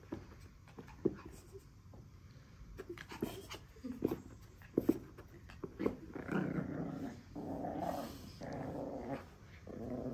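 Pekingese puppy growling in play as it worries a plush toy: about four rough growls in a row from about six seconds on, after a few short knocks and scuffs.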